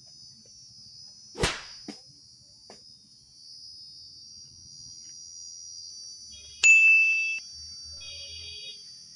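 Comedy-edit sound effects: a sharp swish about a second and a half in, then a loud bright electronic ding about two-thirds of the way through, followed by a softer repeating chime-like tone, over a steady high-pitched hiss.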